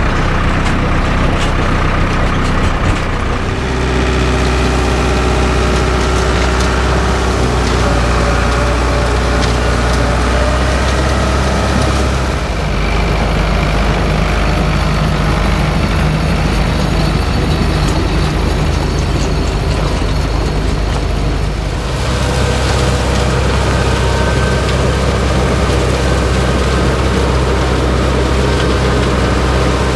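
Ford farm tractor's engine running steadily under load as it tows a forage chopper and wagon, its sound changing slightly at a few points.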